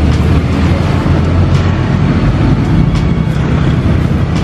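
A steady, loud, low mechanical rumble, with a few faint clicks.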